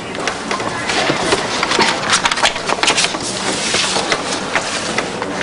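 Crinkling and rustling of a plastic wrapper as a roll of soft cast padding is opened and handled, with many small crackles.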